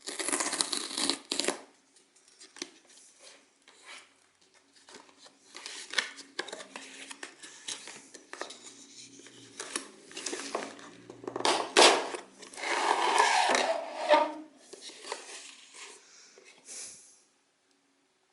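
Packaging being handled and opened by hand: irregular rustling, scraping and tearing of cardboard and plastic. There is a sharp click about twelve seconds in, followed by a longer, louder crinkling stretch.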